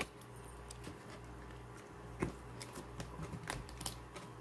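Scattered small clicks and knocks of hands working the plastic parts and wiring on an RC car chassis while forcing a tight-fitting part into place. The sharpest click comes about two seconds in, with lighter ones near the end, over a faint steady hum.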